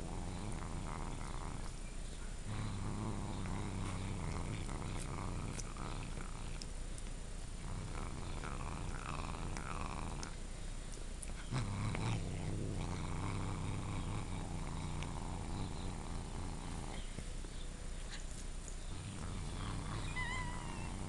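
Domestic cat growling low and steadily in its throat while it gnaws and chews a dog's dental chew stick: a food-guarding growl over the stolen treat. The growl comes in long stretches, with the rasp of teeth on the chew running underneath.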